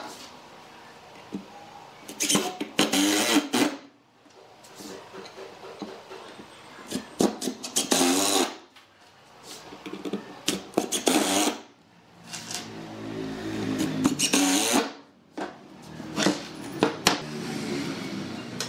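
Makita cordless impact driver driving screws into wood in about five bursts of one to three seconds each, its motor whine rising as it spins up.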